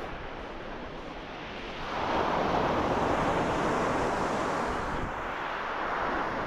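Sea waves breaking on a shingle beach: a wash that swells about two seconds in and eases off slowly.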